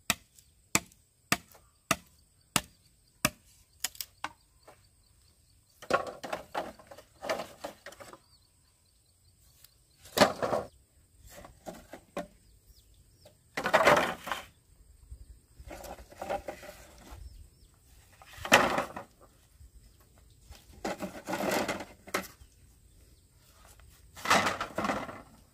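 Bamboo being worked by hand. It opens with a run of about eight sharp knocks, a little over half a second apart, in the first four seconds. Then come irregular bouts of hollow bamboo poles clattering and knocking together as they are laid onto a slatted bamboo floor.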